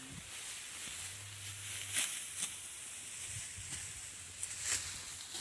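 Dry rice stalks rustling in a field, with a few short swishes and crackles about two seconds in and near the end, over a steady high hiss.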